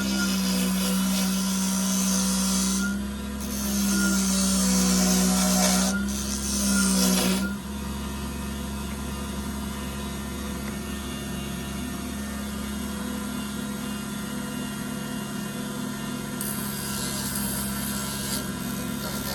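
A power tool's motor running steadily while it works wood. In the first seven seconds it rasps or sands in several bursts, then it runs on lightly, with another short rasping patch near the end.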